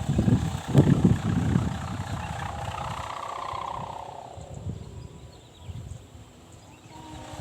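Sendaren kite hummer, its stretched ribbon vibrating in the wind to give a raspy drone, screechy and half snoring. It is loudest in the first two seconds, wavers with the gusts, and fades away after about four seconds.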